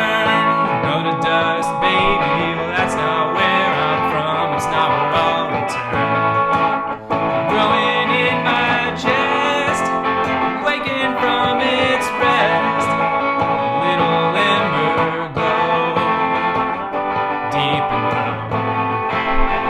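Music: a guitar-led song playing, with some singing.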